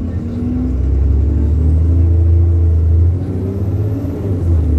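Diesel bus engine working hard under acceleration, a loud low rumble whose note shifts, dipping briefly about three seconds in. A faint high whine rises and then falls.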